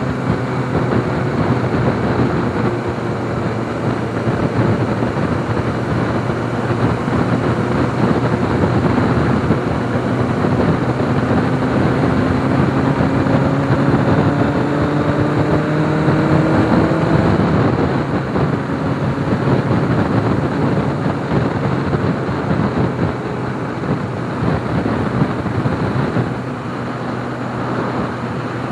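MV Agusta F4 750 Oro's inline-four engine running under way, its pitch climbing slowly from about ten seconds in and dropping back about seventeen seconds in, over steady wind and road noise.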